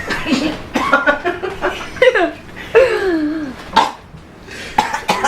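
People laughing, with voices gliding up and down in pitch.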